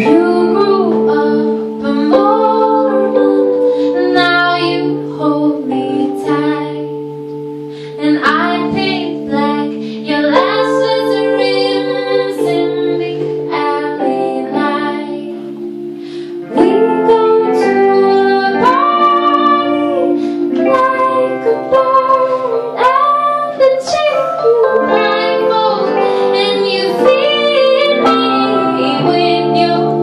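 Live band playing: female voices singing in harmony over electric guitar, with steady held notes underneath. The singing swells with vibrato on the long notes.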